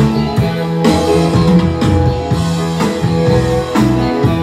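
Live rock band playing, with guitars and drums over a steady bass line.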